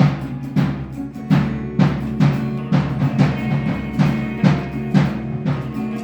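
Electric guitar played with a percussive, drum-like thump on each stroke, about two strokes a second, with chord tones ringing between the strokes.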